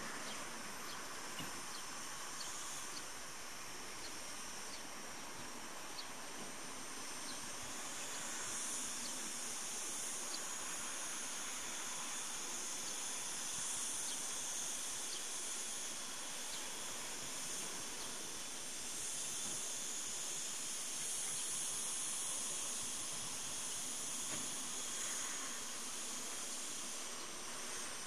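Cicadas singing: a steady, high-pitched buzzing chorus that swells and eases in slow waves.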